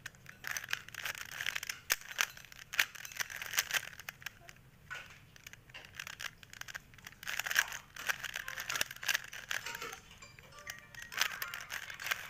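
Plastic 3x3 Rubik's cube being turned quickly by hand: fast runs of clicking and clacking layer turns, with short pauses about four seconds in and near ten seconds.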